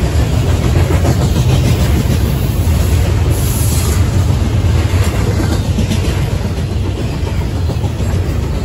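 Double-stack intermodal freight train's loaded container well cars rolling past close by: a steady heavy rumble of wheels on the rails, with a brief high hiss about three and a half seconds in.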